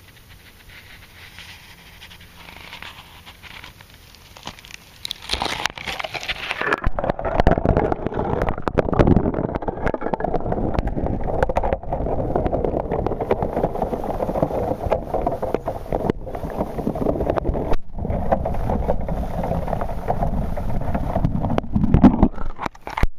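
Water heard through a submerged waterproof camcorder among broken lake plate ice. It is quiet at first. About five seconds in, the camera goes under and the sound turns to a loud, muffled underwater rush and sloshing with many small crackles, which breaks off just before the end as it surfaces.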